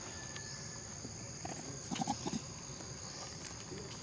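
A monkey gives a quick series of four or five short, low grunts about two seconds in, over the steady high drone of insects.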